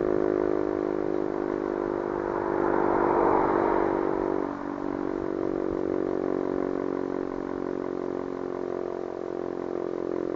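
Sentry 3V8-H electromechanical fire siren sounding its full-attack test signal: a loud, steady siren tone, distorted by an overloaded microphone. The tone swells about three seconds in and eases off slightly after.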